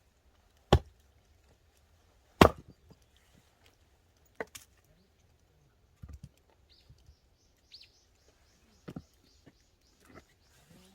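Firewood being split with an axe: two loud chops about a second and a half apart, followed by lighter knocks of wood a few seconds apart.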